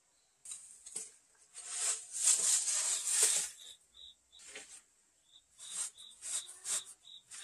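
Steel shovel scraping and tipping loose soil around a brick pit, a gritty pouring and scraping. The longest burst comes about two to three and a half seconds in, and shorter scrapes follow near the end.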